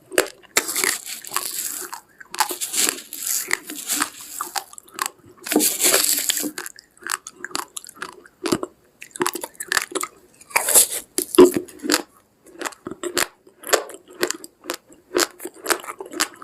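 A person chewing raw, uncooked rice grains in dense, quick crunches, some sharper and some longer and grittier.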